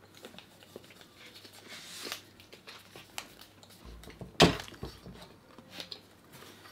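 Soft rustling and ticking of small paper slips being folded by hand, with one sharp knock about four and a half seconds in as an insulated water bottle is grabbed off the table.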